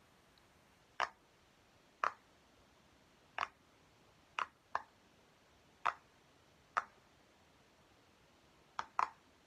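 Silicone pop-it fidget toy's bubbles being pressed in one at a time by fingers, making about nine short pops at irregular intervals of roughly a second, two close together near the end.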